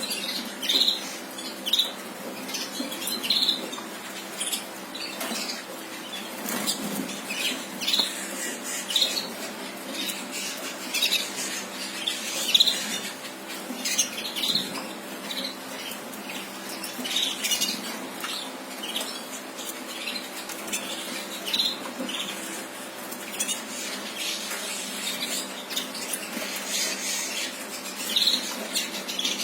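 Red mosaic canary giving short chirps again and again, about one every second or so, with scattered light clicks and rustles over a faint steady hum.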